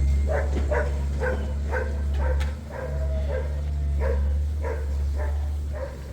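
An animal calling over and over in short calls, about two a second, all at much the same pitch, over a steady low hum.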